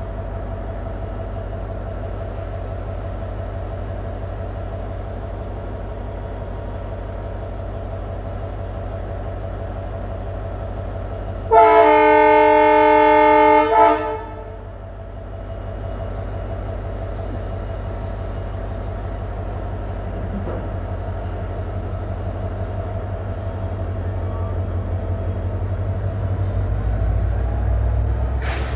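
Train horn blown once for about two and a half seconds, a loud chord of several notes, over the steady low drone of the locomotive. Near the end the drone grows louder and a thin high whine rises in pitch as the locomotive works harder.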